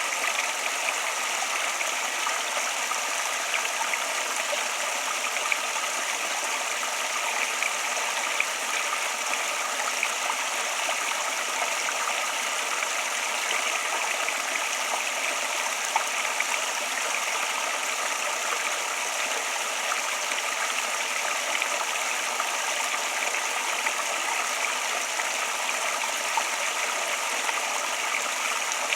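Flowing water running steadily: an even, hissing rush with no deep rumble, with small brief splashes flicking through it.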